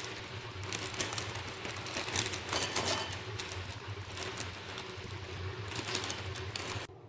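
Irregular clattering and clicking of small hard objects being handled, over a steady low hum.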